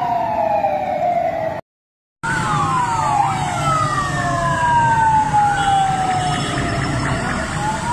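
Several convoy sirens sounding at once, overlapping slow falling wails and quick rising-and-falling yelps, over a low traffic rumble. The sound cuts out for about half a second near the two-second mark, then the sirens resume.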